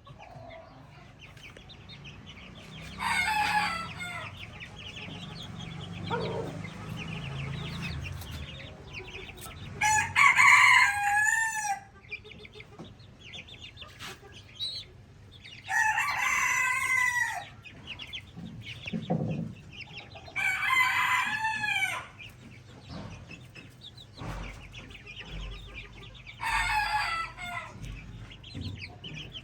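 Shamo gamefowl crowing five times, each crow lasting one to two seconds, over constant high peeping and clucking from the flock.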